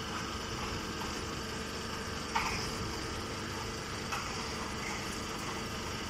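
Straw-handling machinery running with a steady hum. Two short sharp clicks come past the middle, a second and a half apart.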